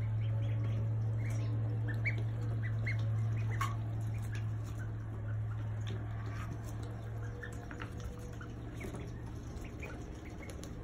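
Ducklings peeping in short, scattered high chirps while pecking at a cabbage leaf, with soft pecking clicks. Underneath is a steady low hum that eases off after about seven seconds.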